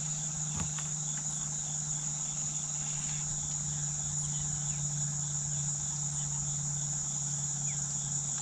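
Insects singing steadily from the wooded shore, a continuous high trill with a faster pulsing note beneath it, over a low steady hum.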